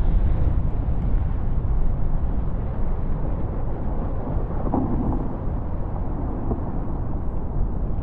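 Steady low rumble of a glacier's calving face breaking up and collapsing into the sea.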